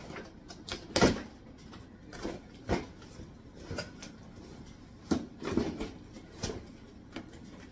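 Cardboard box being opened and its contents handled: a string of separate knocks, scrapes and rustles, the loudest about a second in.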